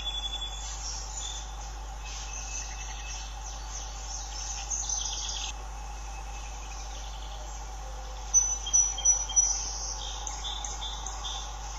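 Summer outdoor ambience of insects buzzing steadily, with songbirds chirping. About eight seconds in, a bird gives a quick run of four loud chirps. A low steady hum runs under it all.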